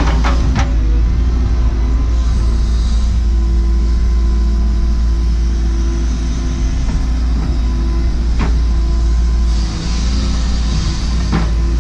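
Cat 314E excavator's diesel engine running steadily under load with a heavy low rumble. A few sharp knocks and clanks come through as the machine works rock and fill, and there are two brief stretches of high hiss.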